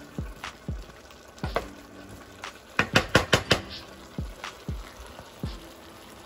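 Wooden spoon stirring and scraping sliced potatoes and onions in a skillet, with a light sizzle of frying underneath. Scattered knocks of the spoon against the pan, with a quick run of louder clacks about three seconds in.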